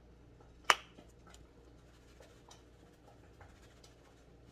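A plastic granulated-onion shaker's flip-top cap clicks open once, sharply, about a second in. It is followed by faint scattered ticks as the shaker is shaken.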